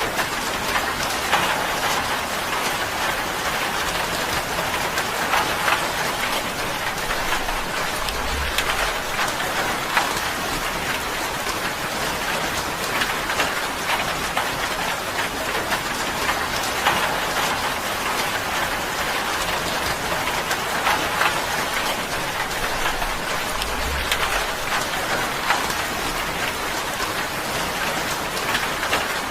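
Steady rain drumming on a tin roof, an even patter full of separate drop ticks on the metal.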